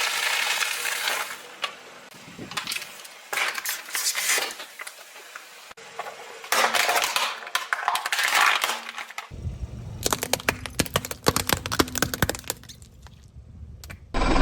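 Crunchy objects being crushed under car tyres: four bouts of crackling and snapping with many sharp cracks. A low rumble runs under the last bout.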